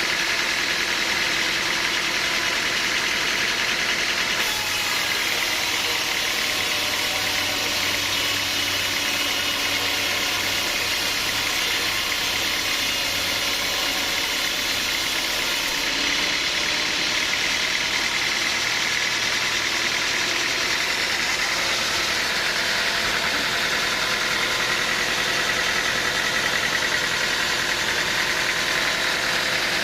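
Sawmill machinery running steadily, with a change in tone from about four seconds in to about sixteen seconds in, when a low hum and a higher hiss join it.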